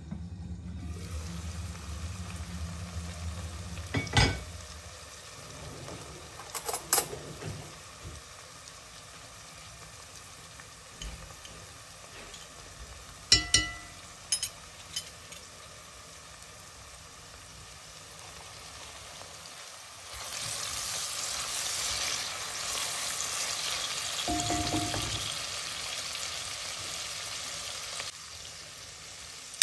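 Chopped onion, garlic and green chili peppers sizzling in olive oil in an enamelled cast-iron pot, louder for several seconds near the end. A few sharp knocks and clinks of metal against the pot.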